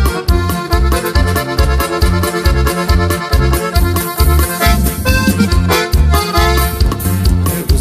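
Instrumental stretch of a norteño corrido: accordion melody over a steady, regular pulsing bass line, with no singing.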